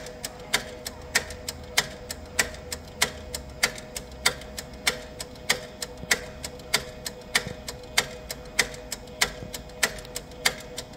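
Mimaki CJV150 wide-format printer clicking in a steady mechanical rhythm, a sharp click about every 0.6 s with softer ones between, over a faint steady hum, as it runs its ink fill to draw ink through the lines into a newly fitted printhead.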